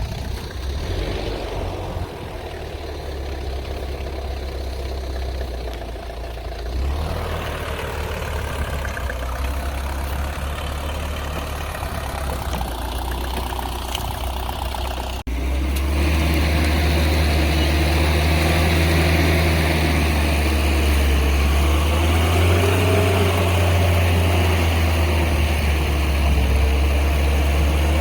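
Engine of a homemade rotary tiller running steadily. About halfway through there is a sudden jump to louder running.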